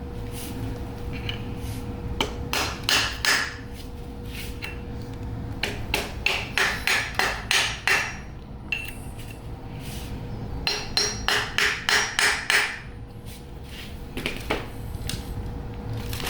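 Hammer tapping on a socket to drive a tapered roller headset bearing and spacer down onto a Sur-Ron fork's steerer: runs of quick metal strikes, about three a second, with pauses between, until the bearing seats. A faint steady hum runs underneath.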